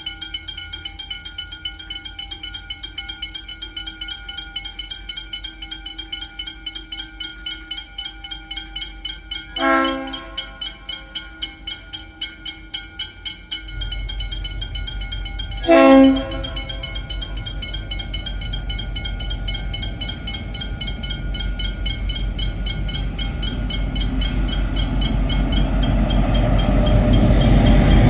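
Level crossing bells ringing rapidly and steadily, then two short blasts of the N class diesel locomotive's horn about six seconds apart. From the second blast on, the locomotive's diesel engine rumbles in low and grows steadily louder as the train approaches.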